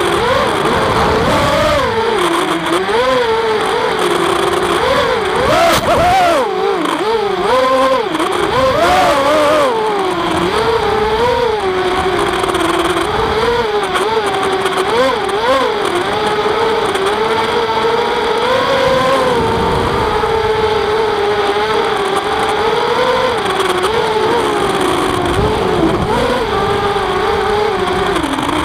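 FPV drone's motors and propellers whining, the pitch rising and falling quickly as the throttle changes.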